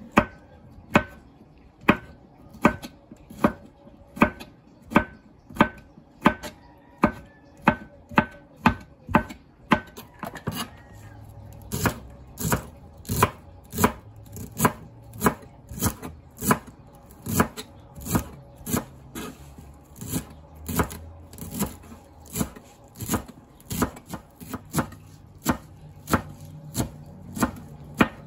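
Kitchen knife chopping food on a plastic cutting board: steady, evenly spaced blade strikes on the board, about one and a half a second, speeding up to two or three a second about ten seconds in as the cook moves from tomatoes to chile and cilantro.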